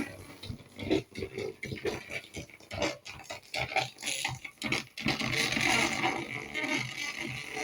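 Record player playing through an AV amplifier with a faulty, distorted sound. It is choppy and broken up at first, then about five seconds in it runs on more steadily with a harsh, hissy edge.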